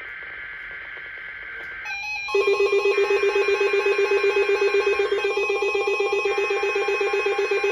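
Emergency Alert System broadcast: a screeching digital data burst, then about two seconds in a loud, harsh alert tone that starts abruptly and holds steady with a fast pulsing buzz.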